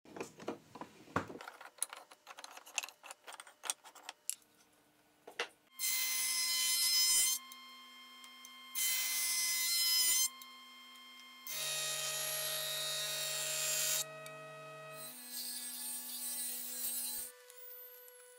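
Wooden boards knocking and clattering as they are handled. Then, from about six seconds in, woodworking power tools run with a steady hum and cut wood in several loud passes of a second or two each: first a jointer, then other machines, including a table saw near the end.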